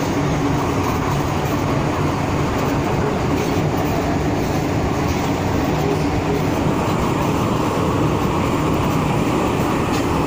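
MTR M-Train running, heard from inside a passenger car: a steady rumble of wheels on rail with a faint low hum that does not let up.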